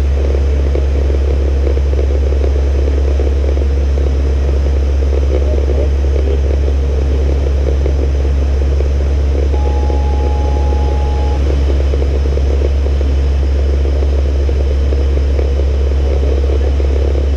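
ATR 42-320F's Pratt & Whitney PW121 turboprop engines and propellers running steadily in flight, heard inside the cockpit as a deep constant hum under airflow noise. About ten seconds in, a short high steady tone sounds for under two seconds.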